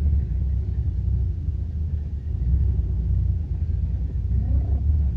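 Low, steady rumble of an off-road jeep driving along a rough dirt track, heard from on board the vehicle.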